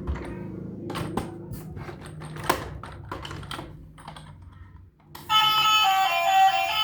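Irregular light clicks and taps over a low hum, then music with plucked-string notes starting about five seconds in.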